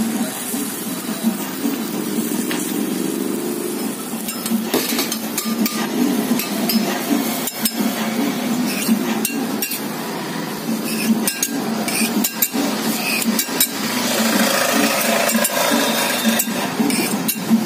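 A steel spatula scrapes and taps on a hot iron tawa while an uttapam fries, with sizzling and a steady low hum underneath. The sharp taps and clinks come irregularly from about five seconds in.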